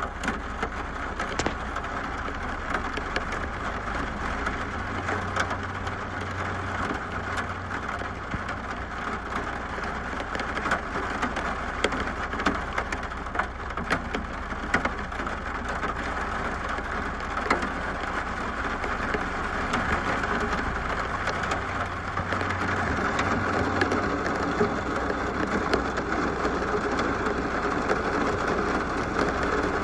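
Steady rain falling, with many individual drops ticking sharply on a hard surface, growing a little louder about three quarters of the way through.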